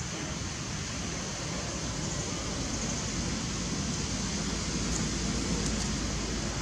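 Steady outdoor background noise: an even rushing hiss with a low rumble underneath.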